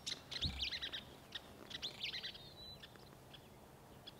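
Small birds chirping: a string of quick, high chirps and short whistled notes that die away after about two and a half seconds.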